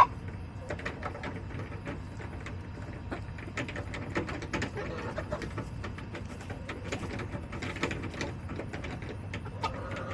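Backyard hens clucking softly, with many scattered sharp clicks and taps throughout.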